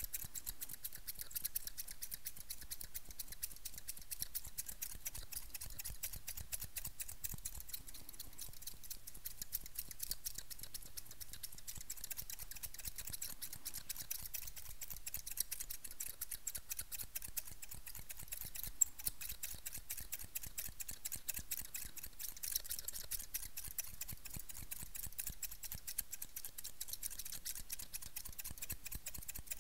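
Two pairs of scissors, steel barber shears and a white-handled pair, snipping rapidly and without pause right at the microphone: a continuous stream of crisp metallic snips.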